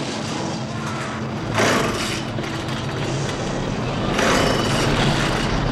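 Small two-stroke chainsaw engine running, revved up sharply about one and a half seconds in and again about four seconds in.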